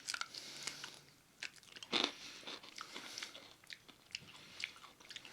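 Biting and chewing thick-breaded fried chicken wings: crisp, irregular crunches, the loudest about two seconds in.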